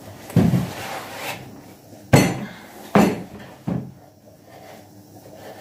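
Wooden kitchen stools knocking hard against a tabletop as they are handled and set down upside down: four knocks, the loudest about two seconds in.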